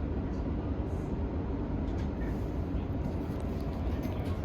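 Steady low rumble inside an E231-series electric commuter train car, with no pitch change or distinct knocks.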